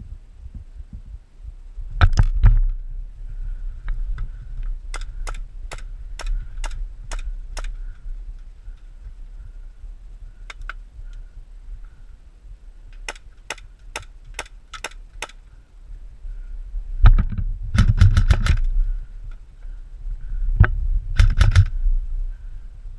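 Airsoft guns firing in the distance: sharp single cracks in two strings of about seven shots each, roughly three a second. Several louder, rumbling knocks of gear or movement against the microphone come in between.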